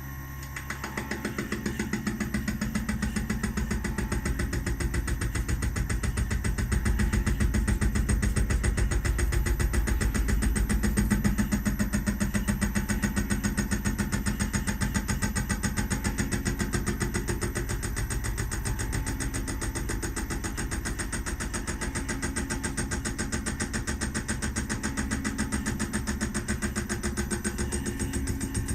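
CNC milling machine running a cut in metal: a steady machining drone with a fast, even chatter that comes in about a second in and holds, loudest in the middle.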